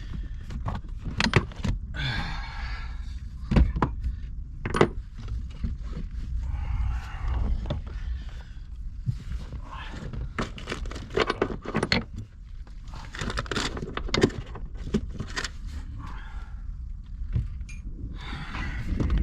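Metal hardware and tools clinking, knocking and scraping as a car seat is worked back into place, with sharp clicks scattered all through and a steady low rumble underneath.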